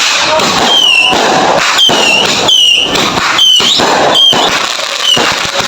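Fireworks crackling and popping continuously and loudly, with short high whistles recurring through the din.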